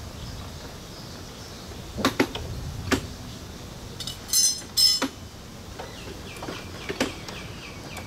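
Scattered sharp clicks and knocks of hands and tools on a live-steam model locomotive of Alishan Forest Railway No. 14, with two brief high-pitched bursts about halfway through.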